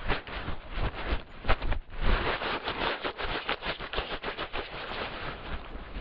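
Wax paper crinkling and rustling, slowed down and boosted: a dense run of irregular crackles and crunches, with a few louder snaps about a second and a half and two seconds in.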